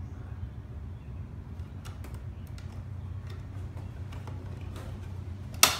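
Small plastic clicks as a ribbed plastic insert inside a 2016 Audi A3's stock air-filter housing is worked at by hand, then one sharp crack near the end as the plastic snaps and a piece breaks off. A steady low hum runs underneath.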